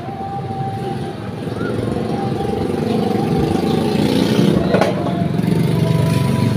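A motor vehicle engine running steadily, with a single sharp click about three-quarters of the way through.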